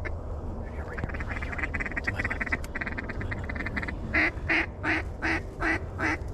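Duck call blown in a mallard cadence: a rapid chatter, then a run of loud, evenly spaced quacks, about two and a half a second, starting about four seconds in. A low wind rumble runs underneath.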